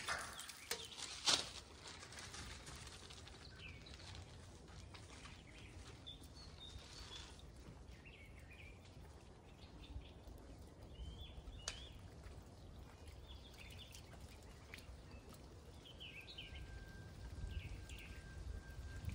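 Faint outdoor ambience: a low rumble with scattered short bird chirps. There are a few sharp clicks in the first second or so, and a thin steady high tone near the end.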